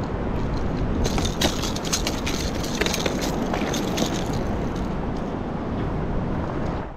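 Steady wind rumbling on the microphone over choppy sea water around a kayak, with a run of small clicks and rattles from about one to three and a half seconds in.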